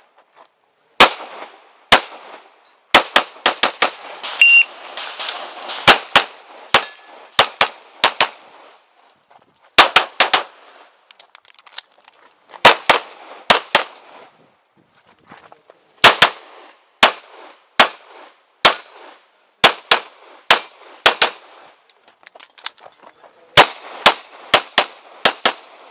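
Pistol shots fired mostly in quick pairs and short strings, with pauses of a second or two between clusters, typical of a practical-shooting stage with two shots on each target. The shots are loud and sharp, close to the shooter's head.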